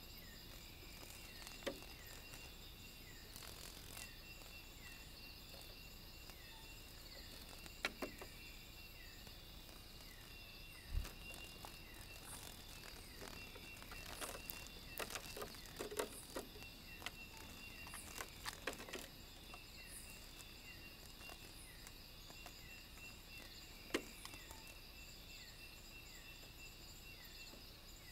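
Faint night chorus of insects trilling steadily at several high pitches, with a short falling chirp repeated rapidly in the first few seconds. Scattered clicks and knocks break in, the loudest a single knock about eleven seconds in and a cluster of taps a little later.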